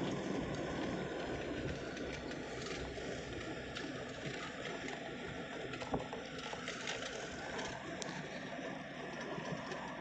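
Steady rushing road and wind noise heard from inside a moving vehicle, with one sharp click about six seconds in.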